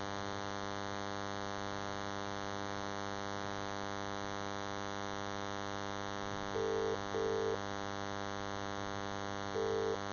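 Steady electrical hum on a recorded phone line. It is broken twice by the British double-pulse ringing tone, once about six and a half seconds in and again near the end, as the held call rings through to be answered.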